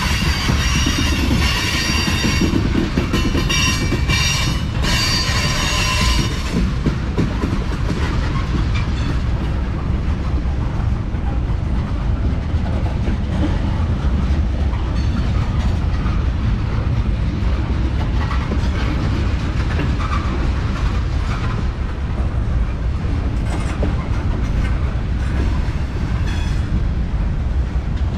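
Train passing behind diesel locomotives: a steady low rumble with the clack of wheels over the rails, and a high-pitched wheel squeal for roughly the first six seconds.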